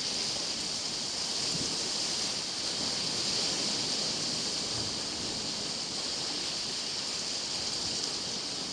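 Sea surf washing against a rocky shore, a steady rushing noise with no breaks.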